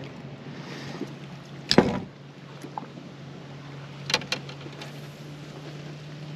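A caught bass being landed and unhooked by hand. There is one loud short thump or splash about two seconds in, then a couple of light clicks a little after four seconds, over a steady low hum.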